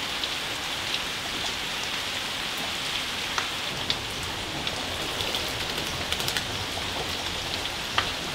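Steady rain falling, a continuous hiss with scattered sharp taps of single drops striking nearby surfaces.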